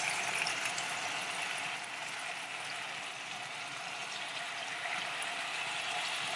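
Steady sizzle of pork pieces frying in a pan on medium-high heat while caramel sauce (nuoc mau) is drizzled over them.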